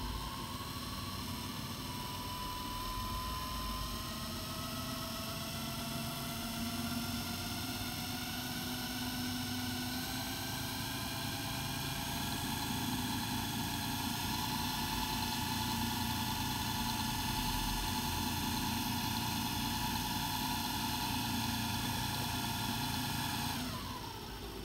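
Belt-driven drill-chuck spindle on a large brushed DC motor, running with a steady whine. The pitch climbs gradually over the first dozen seconds as the PWM speed controller is turned up, holds steady, then drops away quickly near the end as the motor spins down.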